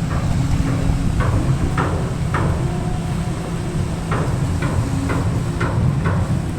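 Steady low rumble with sharp knocks coming roughly every half second, in two runs, like hammering at a construction site.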